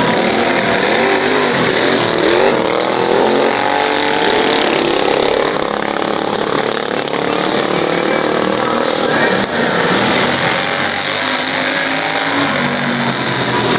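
Engines of several racing lawn mowers running hard, their pitch rising and falling as they rev up and down through the turns.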